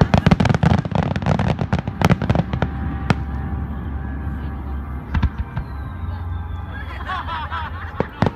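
Aerial fireworks exploding: a rapid volley of sharp cracks and booms for about three seconds, then scattered single bangs over a steady low rumble.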